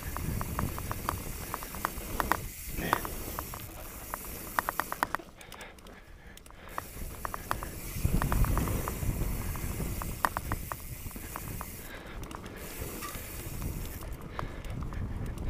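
Mountain bike rolling down a rocky dirt trail: a steady rumble of tyres over gravel and air rushing past, louder about eight seconds in. Several short runs of rapid ticking come through, like the rear hub's freewheel clicking while the rider coasts.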